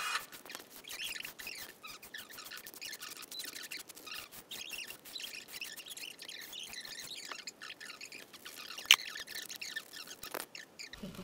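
Polystyrene foam squeaking and creaking as a knife blade scrapes and cuts it and fingers press on it: many short squeaky scrapes, with a sharp click about nine seconds in.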